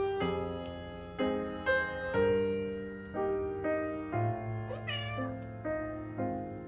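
Piano background music, with a domestic cat giving one short meow about five seconds in.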